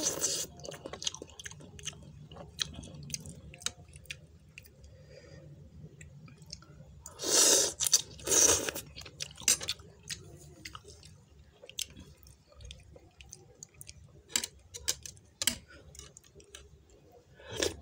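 Someone eating instant noodles: chewing with scattered small clicks of fork and spoon, and two short, loud slurps about seven and eight seconds in.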